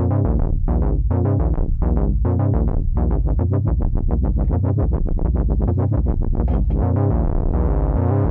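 ARP Avatar analog synthesizer playing a rapid repeating run of short notes over a low sustained note that breaks off about once a second; the notes come faster in the middle.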